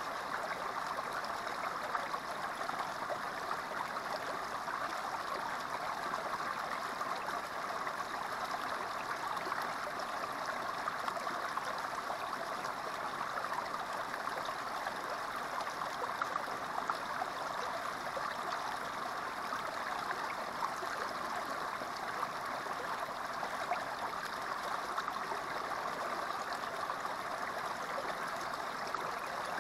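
Small creek water spilling through a gap between rocks and dropping into a shallow pool, a steady flow of splashing and babbling.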